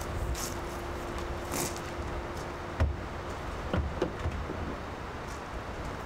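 A sedan's trunk lid opening with a sharp thump, followed by a few lighter knocks as a backpack is loaded into the trunk.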